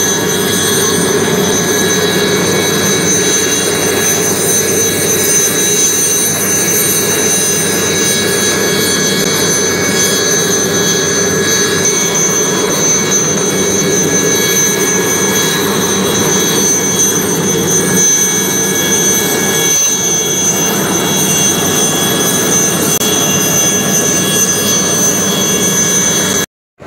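Military light helicopter's turbine engine running on the ground: a steady high-pitched whine of several tones over a loud, even rushing roar. It cuts off abruptly near the end.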